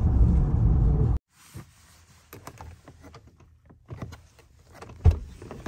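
Steady road and engine noise inside a moving car that cuts off about a second in. Then a few small clicks of plastic trim and a single loud clunk near the end as the interior door handle is pulled and the door latch releases.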